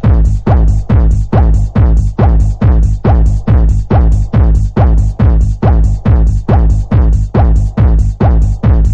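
Electronic dance music driven by a heavy kick drum on every beat, about two and a half beats a second, each kick sweeping down in pitch.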